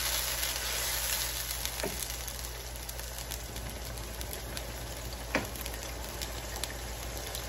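Onions and ginger-garlic paste frying in oil in a pot on low heat, sizzling steadily after a splash of water, with two light clicks about two seconds and five seconds in.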